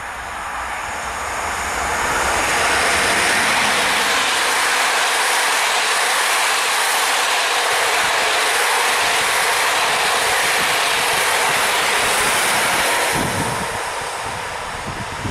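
Electric-locomotive-hauled passenger train passing at speed. The rush of wheels on rail swells over the first two seconds as the locomotive comes by, holds steady while the coaches go past, and fades near the end as the train draws away.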